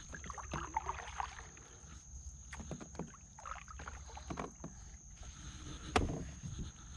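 Kayak being moved quietly across the water: soft paddle splashes and drips with small knocks on the plastic hull, and one sharper knock about six seconds in.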